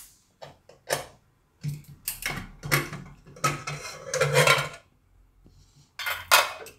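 Metal clicks, knocks and scrapes of a pressure cooker being opened by hand: the lid handle is worked and the inner-fitting lid is pulled free and lifted out. The sounds come as a string of short knocks over several seconds, with two more loud knocks near the end.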